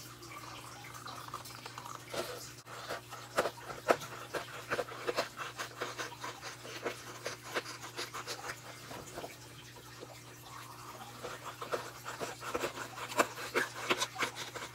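Scissors cutting printer paper: a run of irregular snips and crisp paper crackles as the excess margin is trimmed off a printed sheet, which is turned between cuts.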